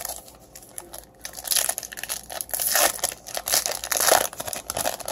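Foil wrapper of a Topps Chrome trading-card pack being torn open and crinkled by hand. Crackling rustles that turn dense about a second and a half in and stop near the end.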